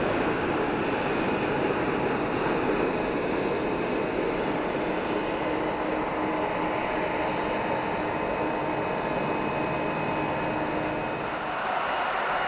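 Jet engines of an Airbus A330 airliner on final approach and touchdown: a steady jet rumble with a low whine held through most of it. Near the end it gives way to another airliner's engines at low taxi power, with a different, higher rushing sound.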